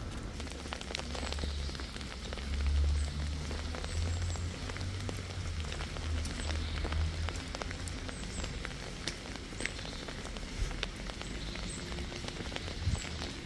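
Steady rain falling on wet cobblestones, with scattered sharp drop ticks close by. A low rumble runs under it through roughly the first half.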